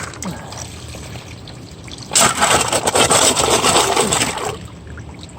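Water sloshing and pouring as a gold pan is worked in a creek, loudest for about two seconds starting around two seconds in, over the steady rush of the stream.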